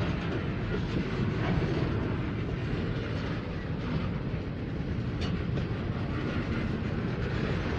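Slow-moving freight train of boxcars, covered hoppers and flatcars rolling past: a steady rumble of steel wheels on rail, with one sharp clank about five seconds in.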